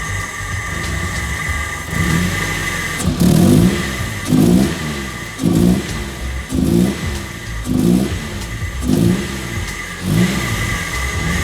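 Nissan KA24DE inline-four engine running on its new alternator and being revved in short throttle blips, about one a second.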